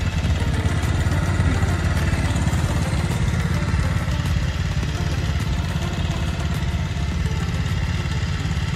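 Motorcycle being ridden along, its engine running steadily under a heavy low rumble.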